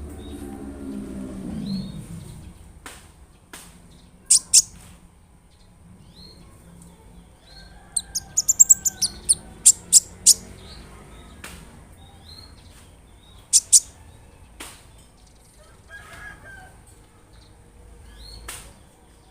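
Konin (kolibri ninja) sunbird singing in very high, sharp chirps: a pair about four seconds in, then a quick rising run of about a dozen notes, another pair, and single ticks between. A lower falling sound fills the first two seconds, and a steady high-pitched whine runs beneath.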